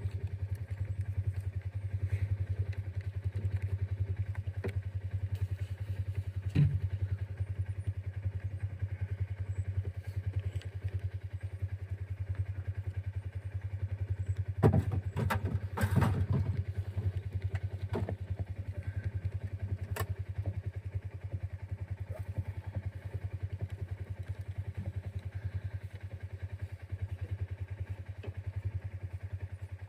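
An engine running steadily with a low, even drone, with a few knocks and a brief clatter about halfway through.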